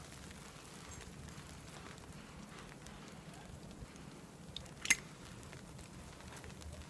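Faint steady crackle and hiss as a tobacco pipe is lit with a brass flip-top lighter and puffed, with freezing rain falling around it. A single sharp metallic click comes about five seconds in, with a softer one just before it: the lighter's lid snapping shut.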